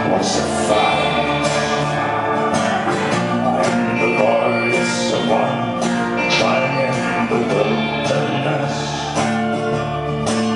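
Live band playing an instrumental passage led by plucked and strummed string instruments, at a steady level.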